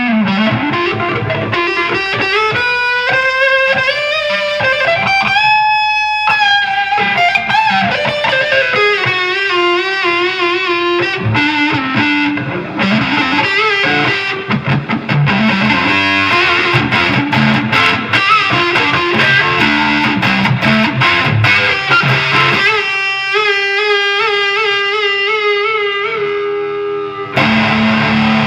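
Electric guitar playing a lead line through a Snake Oil Fine Instruments Marvelous Engine gain pedal: notes bent upward to a held, wavering note in the first few seconds, quick runs after, and another note held with vibrato near the end.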